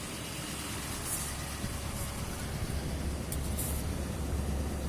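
LMM Duramax 6.6-litre V8 turbodiesel idling steadily on its cold-weather high idle, around 1050 rpm, heard from inside the cab. The low rumble gets a little stronger about halfway through.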